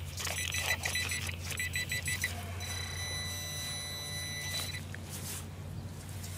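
Handheld metal-detecting pinpointer sounding off on metal in the hole: a rapid stream of high chirping beeps, then a steady high tone for about two seconds that cuts off. It is signalling the buried coins it is held against.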